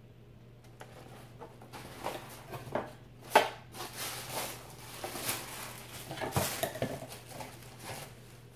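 Tissue paper rustling and crinkling as the contents of a cardboard subscription box are unpacked by hand, with a sharp knock about three and a half seconds in.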